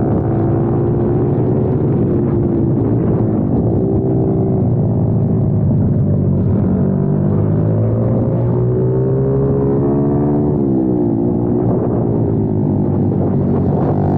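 Kayo TT 140 pit bike's 140cc four-stroke single-cylinder engine under hard riding, heard from a camera mounted on the bike; the revs climb and drop sharply several times as the throttle is worked through corners and gear changes.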